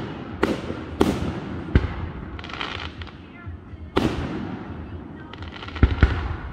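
Aerial firework shells bursting overhead: about five sharp booms, each trailing off, with crackling between them.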